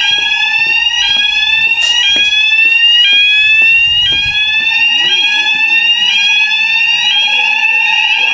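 Electronic fire alarm sounders going off during a weekly alarm test. A rising sweep tone repeats about once a second, each sweep snapping back down, over a steady lower tone. A couple of sharp clicks come about two seconds in.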